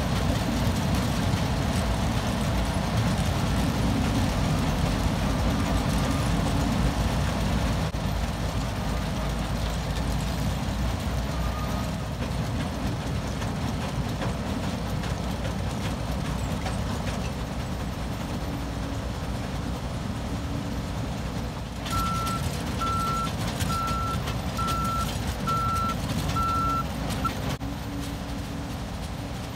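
Heavy machinery and vehicle engines rumbling steadily at a sugar beet piler. A little over two-thirds of the way in, a vehicle's backup alarm beeps about seven times in an even series, then stops.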